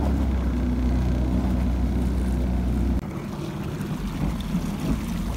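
Sea-Doo Spark personal watercraft running, its three-cylinder Rotax engine giving a steady low note while the jet pump pushes water out the stern. The sound steps down a little about three seconds in.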